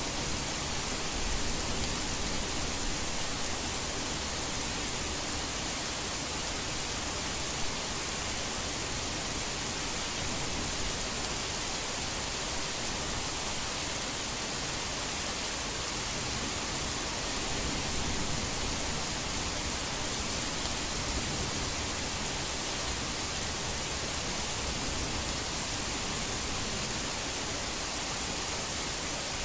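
Heavy rain falling as a steady, even hiss with no breaks.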